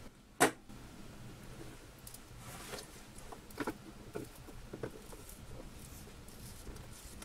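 A sharp click about half a second in, then scattered small crackles and ticks as the old polarizer film, degraded by vinegar syndrome, is peeled by hand off the LCD panel's glass plate against its strong glue.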